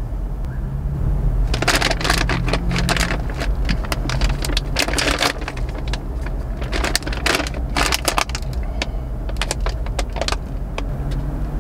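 Plastic beef jerky bag crinkling and crackling in the hands as it is torn open and handled, in repeated bursts starting about a second and a half in. A low steady hum runs underneath.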